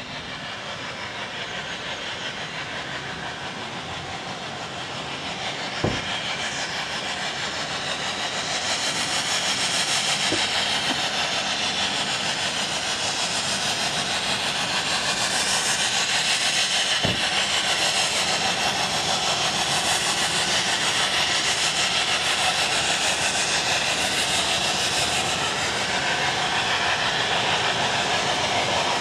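Snowdon Mountain Railway rack steam locomotive working past with its coach, a steady hiss of steam and exhaust that grows louder over the first several seconds and then holds. Two sharp knocks stand out, about six seconds in and again about seventeen seconds in.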